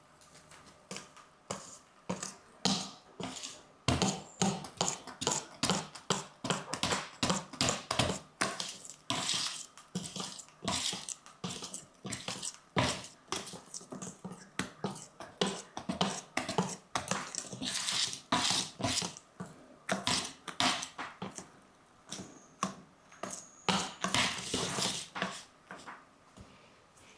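Wire whisk beating cake batter by hand in a mixing bowl, clicking and scraping against the bowl in quick rhythmic strokes, about two a second.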